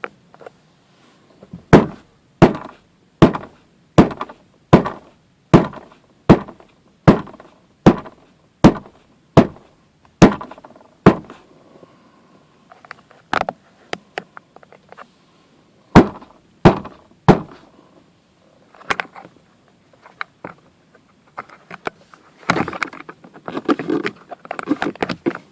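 Sharp knocks on the dashboard of a 2008 Honda Civic five-door, struck at a steady rate of a little more than one a second, then a few scattered knocks and a spell of quicker, lighter clattering near the end: probing for a rattle in the dash that buzzes over small bumps.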